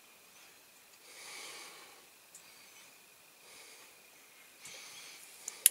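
A person's quiet breathing while small parts of a diecast toy tractor are handled, then two sharp clicks near the end.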